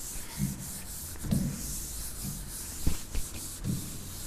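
A palm rubbing across the glass of an interactive smart board, wiping away pen marks in repeated strokes, with soft thuds of the hand and a sharp tap about three seconds in.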